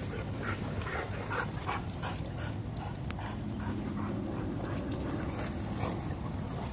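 Dogs play-chasing and wrestling, giving a string of short yelps and whines in the first few seconds, then a few more.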